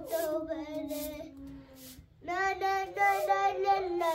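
A child singing alone, without instruments. The voice slides down into a long held note, breaks off for a breath about two seconds in, and then starts the next phrase.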